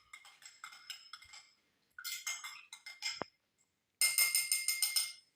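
Glass clinking in runs of small, quick, ringing taps, with the densest and loudest run near the end. A single dull knock comes about three seconds in.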